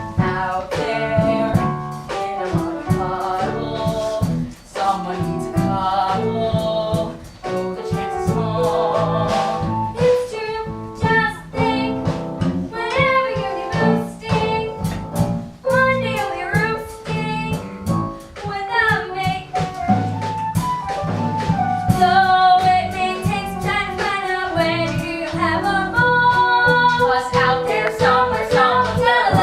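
A musical theatre song: voices singing with vibrato over instrumental accompaniment.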